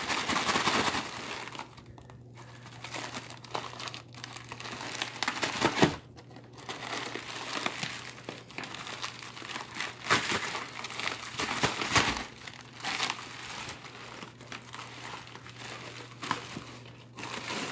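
Crumpled brown packing paper and wrapping rustling and crinkling as a cardboard shipping box is unpacked by hand, in irregular bursts, loudest near the start and about 6, 10 and 12 seconds in.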